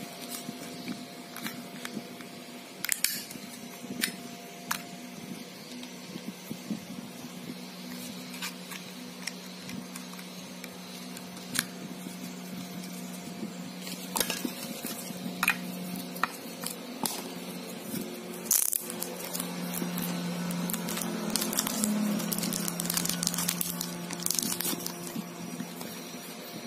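Small plastic clicks, taps and scrapes of a Huawei E5573 pocket Wi-Fi modem's casing, battery and SIM card being handled during a SIM card swap, irregular and scattered throughout, over a steady low hum.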